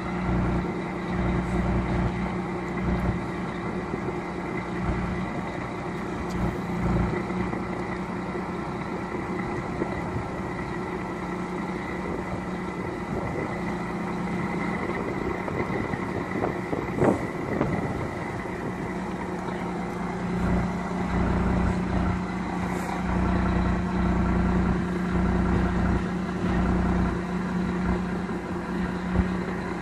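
Diesel engine of a box lorry running at low revs with a steady hum while it slowly reverses up to a fairground ride trailer to hitch it. There is a single louder clunk about halfway through.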